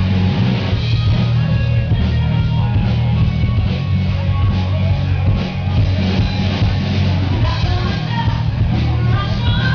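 Rock music with singing and guitar, a strong bass line running underneath.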